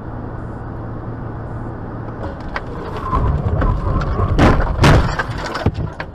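A car's steady engine and road noise, then a collision starting about two and a half seconds in: a run of sharp impacts, the loudest near five seconds in.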